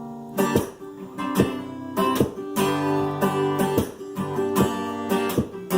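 Acoustic guitar strumming chords in an instrumental passage, with even strokes a little more than once a second and the chords ringing on between them.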